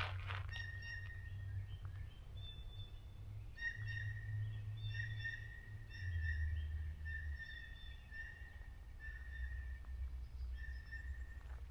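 A forest bird calls with a series of short notes held at one steady pitch, roughly one every half to one second. The run grows denser after about three and a half seconds. A steady low rumble sits underneath.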